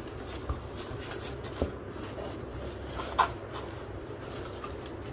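A cardboard box being handled and opened: a few light knocks and taps, about half a second, a second and a half and three seconds in, over a steady low hum.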